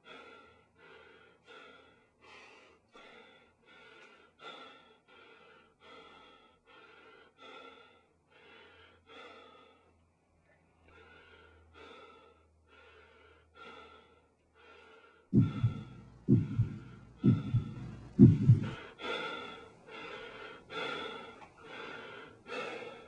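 Heavy, rhythmic panting, about one and a half breaths a second, growing louder in the last few seconds. Four loud, low thuds about a second apart break in past the middle.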